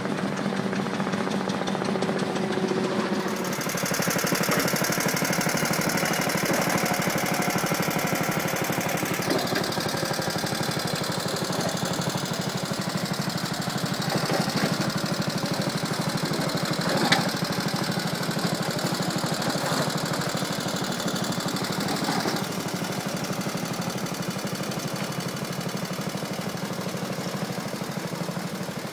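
Small engine of a 2 ft narrow-gauge motorised tipper skip wagon running steadily with a rapid, even beat as it travels along the track. One sharp knock sounds partway through.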